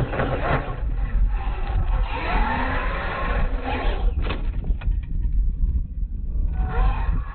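Radio-controlled monster truck's electric motors whining, the pitch rising and falling as it is revved, with a sharp knock of the truck landing a little after four seconds in, over a steady low rumble.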